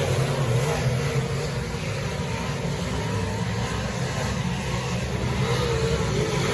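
Dirt-track modified race car engine running at a fairly steady speed, its pitch wavering slightly.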